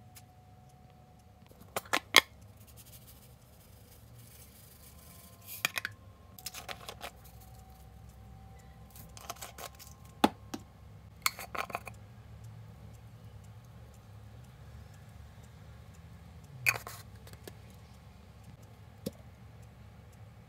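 Scattered sharp clicks and taps of seasoning containers being handled over a pot of raw cut pork: a measuring spoon, a spice shaker and bottle caps. The loudest clicks come about two seconds in and about ten seconds in, over a low steady hum.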